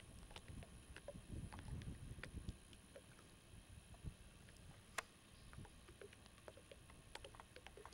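Near silence: faint outdoor background with a low rumble in the first couple of seconds, scattered faint ticks, and one sharper click about five seconds in.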